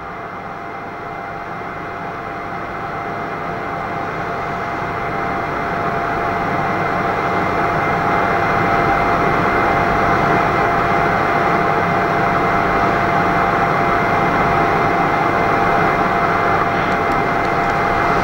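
Steady hiss of background noise with a faint steady whine, heard on a Panasonic RR-QR80 voice recorder's playback. It grows louder over the first several seconds and then holds; the owner takes the background noise for his electric fire.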